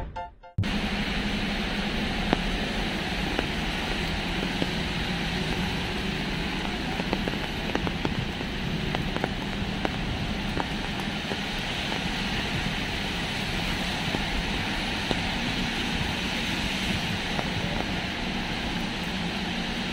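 Steady rainy city-street ambience: traffic running on wet road and rain, with a few faint ticks.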